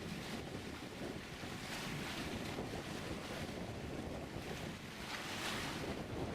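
Wind buffeting the microphone and rushing water aboard a rescue boat under way at sea, a steady rush that swells twice.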